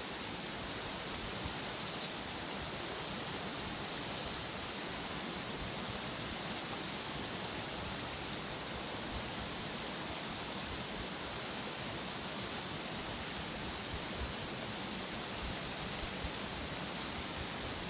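Small mountain stream rushing steadily over rocks and a little cascade, an even, unbroken rush. A brief high chirp sounds three times in the first half.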